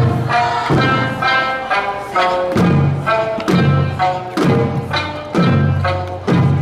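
Okinawan eisa dance music with taiko drums: big drums and hand drums struck together on a heavy beat about once a second, over a pitched song accompaniment.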